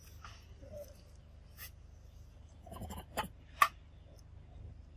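A macaque eating a ripe mango: a few short wet smacking and biting clicks, bunched around three seconds in, with the loudest about half a second later, over a faint low steady hum.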